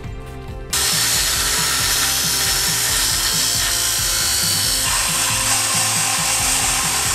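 Background music, then under a second in an angle grinder starts abruptly, grinding into rusted steel with a loud, steady hiss that carries on throughout.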